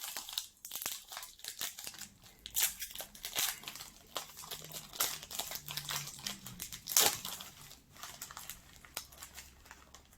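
Plastic snack wrapper crinkling and being torn open, with irregular crackles and a few louder rips.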